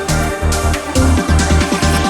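Electronic dance music with a steady kick drum about twice a second, and a quick run of short, repeated synth notes coming in about a second in.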